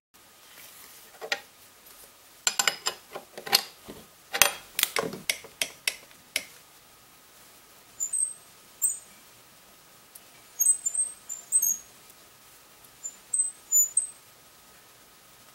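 A run of sharp clicks and knocks for the first several seconds. Then short, very high squeaks come and go as a drill press chuck is turned slowly by hand, sweeping a steel rod clamped in it around the table.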